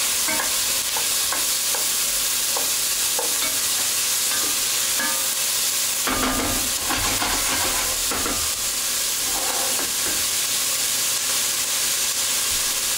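Diced onions sautéing and sizzling in hot oil in a stainless steel pan, stirred and scraped with a wooden spoon, with light knocks of the spoon against the pan. The stirring stops near the end, leaving the steady sizzle.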